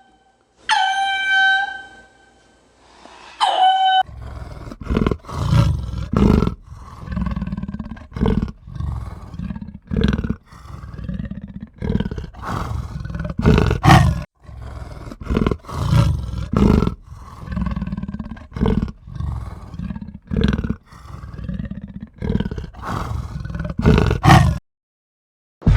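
A rooster crowing, then a long run of deep, rough animal calls, about one or two a second, that stop suddenly near the end.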